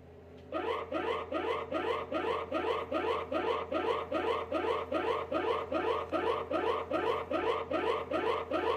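Mock emergency alert tone: a rising electronic chirp repeated about three times a second, over a steady low hum. It starts about half a second in.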